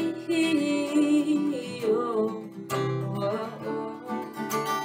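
Acoustic guitar strummed, with a woman's voice singing a wavering, wordless held line over the first two seconds or so.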